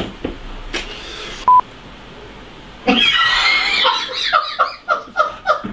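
A single short electronic beep about one and a half seconds in, the loudest sound here. Then from about three seconds a breathy exhale runs into laughter in quick rhythmic bursts that lasts to the end.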